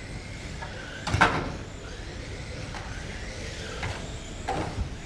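1/12-scale GT12 electric RC pan cars racing on a carpet track, their motors whining up and down in pitch as they accelerate and brake. Sharp knocks cut through, the loudest about a second in.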